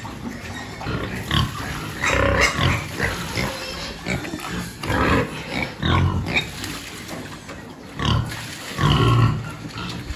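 Large domestic pigs grunting repeatedly in short, loud, irregular bursts at feeding time, as feed is tipped into their trough.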